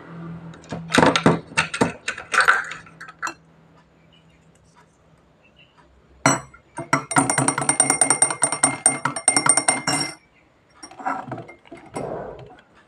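Metal teaspoon stirring coffee in a small glass cup, clinking rapidly against the glass with a ringing tone for about four seconds. A few separate clinks come before it, and softer handling of the cup on its saucer comes near the end.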